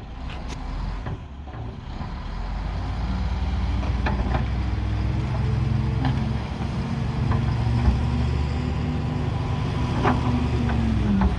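Heavy earthmoving machine's diesel engine working under load, a steady low drone whose pitch wavers and dips near the end, with several sharp metallic clanks along the way.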